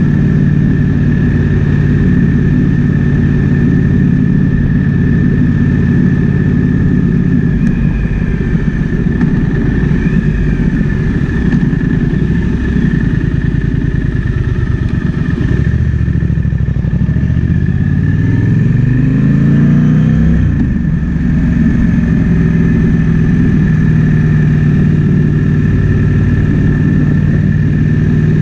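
Triumph Speed Twin 1200's 1200 cc parallel-twin engine running under way with wind rushing past. It holds a steady cruise, eases off about halfway through, then revs up, shifts gear about three-quarters of the way in, and settles back to a steady cruise.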